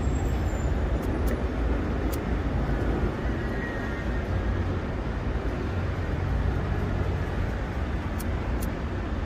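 Steady street traffic noise, a low rumble with no voices, broken by a few faint sharp clicks.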